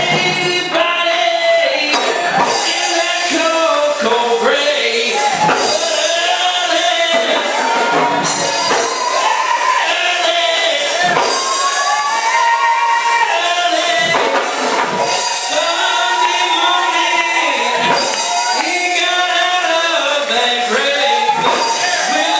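Preacher whooping into a microphone: sung, chanted preaching in held, bending phrases, over gospel music with a tambourine.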